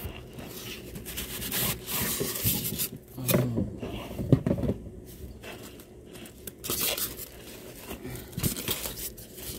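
Packing being handled as a small sewing machine is pulled from its cardboard box: polystyrene foam end caps and clear plastic wrap rubbing, scraping and crinkling in irregular bursts.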